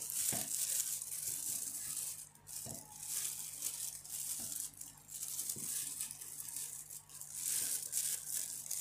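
Crinkling of a clear plastic disposable glove while vegetable chunks are handled and set into a plastic food-chopper bowl, with a few soft knocks as pieces land.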